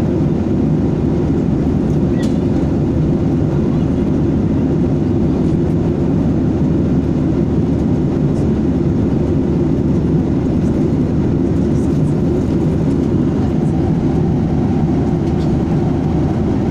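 Steady cabin noise of a Boeing 737 airliner at cruise altitude: a constant low rush of engine and airflow noise heard from inside the cabin.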